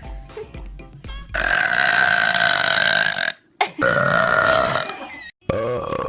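A person burping: three long, loud burps in a row, the first lasting nearly two seconds, after a short stretch of music.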